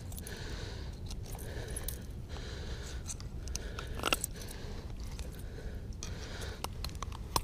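Small clicks, scrapes and rustles of hands handling a netted musky and its hooked lure in a landing net, with one sharper click about four seconds in, over a low steady rumble.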